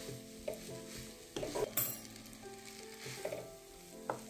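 Wooden spatula stirring and scraping fried rice vermicelli in a non-stick frying pan, in several short strokes over a light sizzle.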